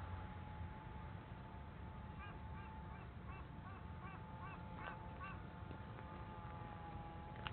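A run of about ten short, arched, nasal animal calls, about three a second, over a steady thin high hum.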